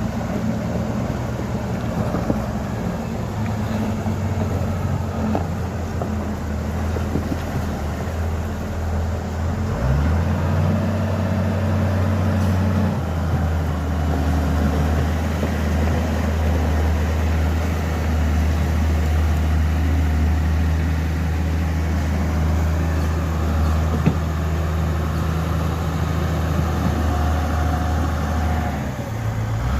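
An engine running steadily. Its pitch rises about ten seconds in, then holds at a new steady note for the rest of the stretch.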